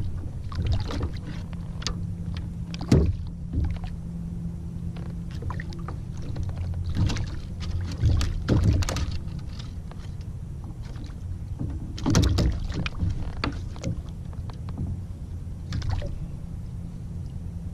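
Sounds of a fishing kayak on the water: scattered splashes and knocks against the hull, the loudest about 3, 8 and 12 seconds in, over a steady low rumble.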